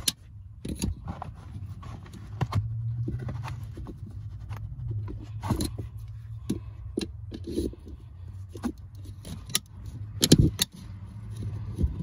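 Small metal clicks, taps and scrapes of a screwdriver prying at the retaining clip on a brake pedal arm, irregular and scattered, with the clip not yet coming free. A steady low hum runs underneath.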